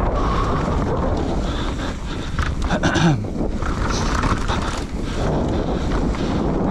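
Enduro motorcycle engine running under heavy wind noise on the microphone, with a brief drop in pitch about three seconds in.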